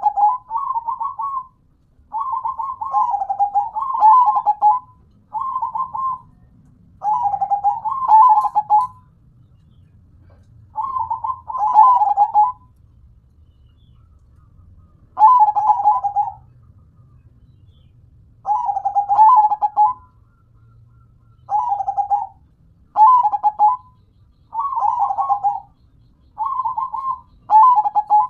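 Zebra dove (perkutut) singing its manggung song: a dozen or so bubbling, rolling coo phrases of about a second each, some run together in pairs, with short pauses between and one longer pause midway.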